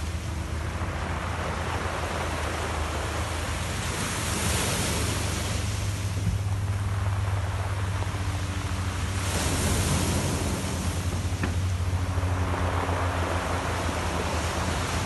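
Small ocean waves washing in over a pebble shoreline, the hiss of the surf swelling every few seconds as each wave breaks and runs up, with wind rumbling on the microphone.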